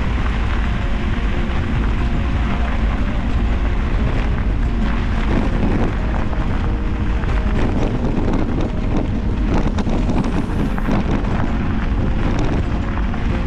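Wind buffeting an action camera's microphone on a moving mountain bike, over the crunch and rattle of knobby tyres rolling on loose gravel.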